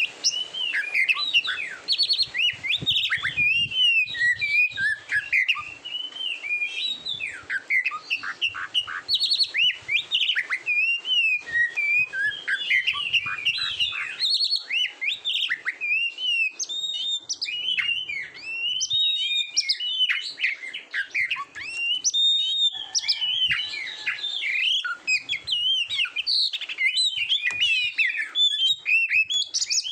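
Oriental magpie-robin singing without pause: a rapid, varied run of high whistles, trills and chirps.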